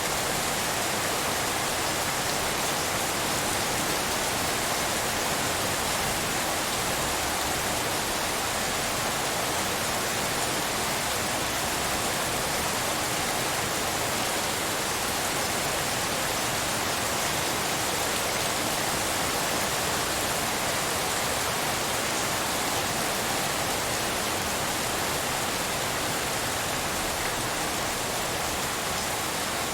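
Steady rainfall: an even, unbroken hiss with no single drops or claps standing out.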